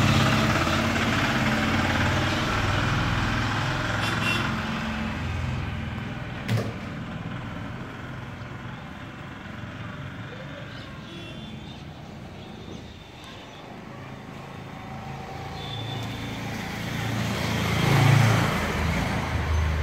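Engine of a road vehicle passing on the street, loud at first and fading away over several seconds. Later another vehicle grows louder near the end, then the sound cuts off suddenly. A single sharp click comes partway through.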